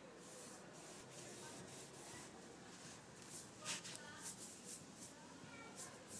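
Faint swishing of a paintbrush stroking wood stain onto teak-veneer plywood cabinet doors, with a couple of brief louder taps, the first about halfway through.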